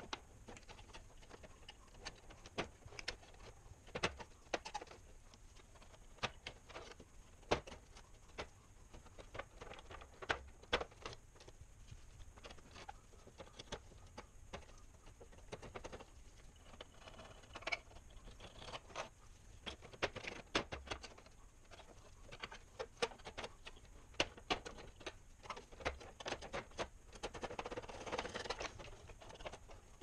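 Hobby knife blade scraping old sticker remains off a hard plastic toy playset: faint, irregular scratches and clicks, with a longer, denser run of scraping near the end.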